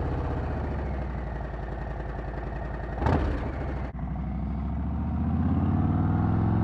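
Harley-Davidson Heritage Softail V-twin idling just after starting, breathing through an aftermarket Freedom Performance Sharktail exhaust. A brief louder burst comes about three seconds in, and the revs rise a little near the end.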